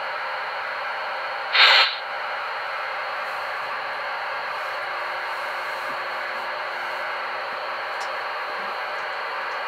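Steady hiss of a standing steam locomotive, a recorded effect played by a QSI Maxx Traxx model-train sound system. A short, louder burst of hiss comes about a second and a half in.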